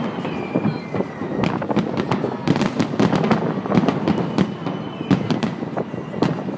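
Fireworks salute: a rapid, irregular string of sharp bangs and crackling pops, growing denser about a second and a half in.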